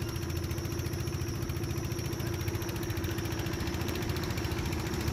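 Fishing boat's engine running steadily: a fast, even throb under a constant hum.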